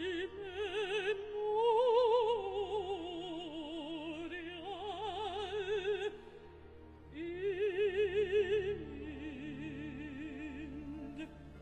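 A female operatic soloist sings two long, slow phrases with a wide vibrato over a soft orchestra. After a short dip the second phrase begins about seven seconds in.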